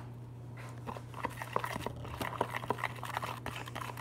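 A metal spoon stirring glue-and-saline slime in a plastic tub: quick, irregular clicks and sticky squelches, busiest from about a second in, as the mixture starts to thicken into slime.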